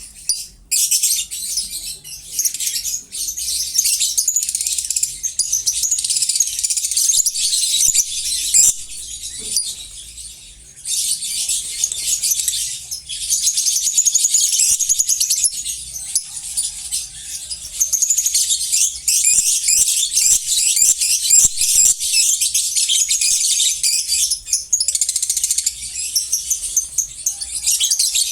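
A flock of caged lovebirds chattering and screeching all at once: a dense, high-pitched, unbroken chatter that thins briefly a third of the way in and again near the end.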